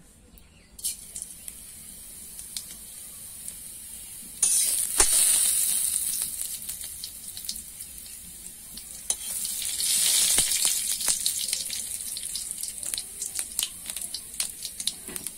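Hot oil in a large aluminium karahi over a wood fire bursts into a loud sizzle about four seconds in as a granular ingredient is dropped in. The sizzle then carries on with many small crackles and spits, fading slightly and rising again around nine seconds in.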